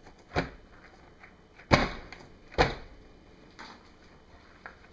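A filled soap mold knocked down on a countertop, with three sharp knocks and a fainter fourth. The tapping brings trapped air pockets up out of the freshly poured cold process soap.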